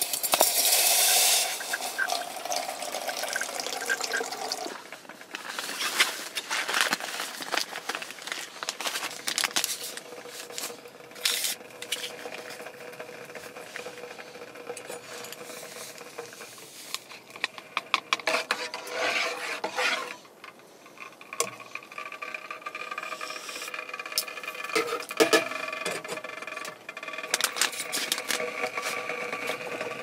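Water squeezed from a soft bag through an inline squeeze filter, splashing into a metal pot and later trickling into a food pouch, with clicks and rustles of handling between pours.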